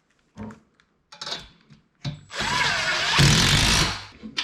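A couple of short knocks, then a cordless drill/driver runs for about two seconds, driving a screw into the desk panel, its motor pitch dipping and rising under load.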